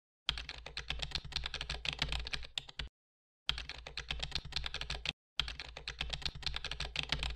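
Computer-keyboard typing sound effect: three runs of fast key clicks, broken by short silent gaps about three seconds and five seconds in.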